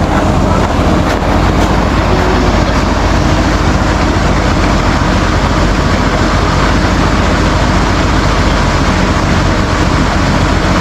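Steady, loud machine noise: a constant low motor hum under an even hiss, with no change in level.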